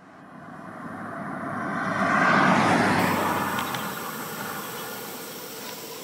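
A passing car's road noise, swelling to its loudest about two and a half seconds in and then slowly fading away.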